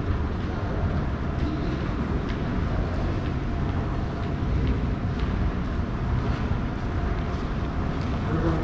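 Airport terminal hall ambience: a steady low rumble filling the space, with faint, evenly paced footsteps on a hard terrazzo floor.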